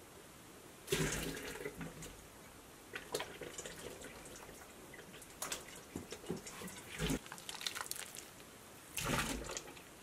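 Water poured and scooped with a small glass bowl into a large stainless steel stockpot of cubed potatoes, splashing in about five short bursts.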